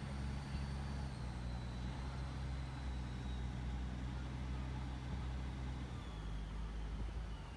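A river boat taxi's engine running steadily, a low hum with a faint high whine slowly falling in pitch. The engine's note changes about six seconds in.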